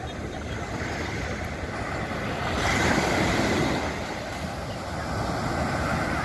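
Sea surf washing on the beach. One wave swells louder about two and a half seconds in and eases off a second or so later.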